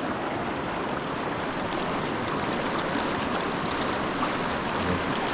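Fast-running river water rushing steadily over rocks.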